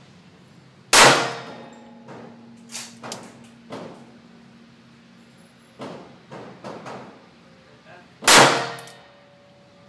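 .38 revolver fired twice, about seven seconds apart, each report very loud with a long ringing tail. Fainter sharp gunshot reports sound between the two.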